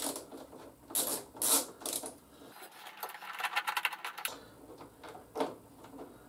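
Plastic fairing panel and its fasteners being worked by hand with a Torx driver: sharp knocks and clicks, then a rapid run of ticking, about ten a second, from about two and a half to four seconds in.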